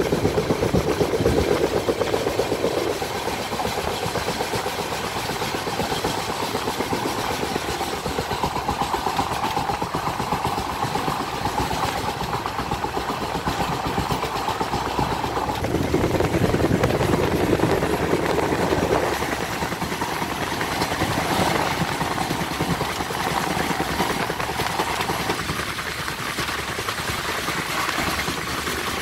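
Running noise of an Indian Railways express train heard from on board while under way: a steady, loud rumble and rattle of wheels on track and coach. It swells louder and deeper for a few seconds at the start and again about halfway through.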